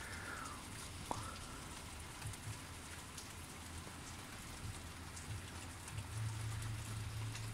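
Steady rain falling, with scattered faint drop ticks. A brief whistle-like chirp comes about a second in, and a low hum swells near the end.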